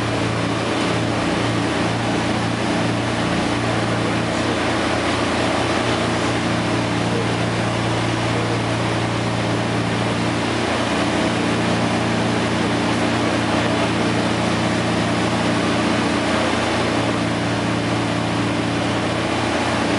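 Two radial piston engines of a DC-3 Dakota droning steadily, heard from inside the flight deck: a strong, even low hum under a broad rushing noise.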